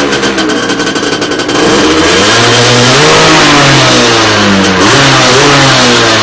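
Derbi Xtreme motorcycle engine being revved. The pitch sags over the first second and a half, climbs again about two seconds in and holds high, dips briefly near five seconds, then rises and falls away toward the end.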